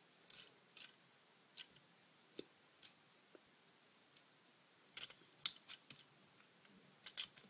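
Faint, scattered clicks and taps of hard plastic parts as a Transformers Prime Ratchet deluxe action figure is handled, with its detached lower leg being fitted back on. The clicks bunch together about five seconds in and again near the end.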